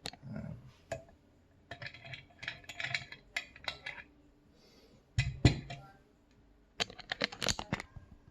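Metal clicks and clinks of a disk detainer lock and its pick being handled, coming in several short clusters, with a louder knock about five seconds in.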